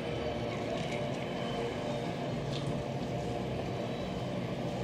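Distant freight train rolling past, its loaded wagons making a steady rumble on the rails with a low drone under it.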